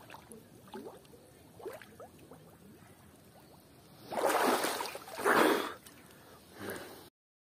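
Faint bubbling at the water surface from a man holding his breath under water, then about four seconds in two loud splashes in quick succession as he bursts up out of the water with a caught fish, and a smaller splash near the end. The sound cuts off suddenly just before the end.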